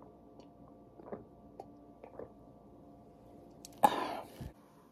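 A man gulping water from a glass mason jar, with quiet swallows every second or so. About four seconds in comes a loud breathy gasp after drinking.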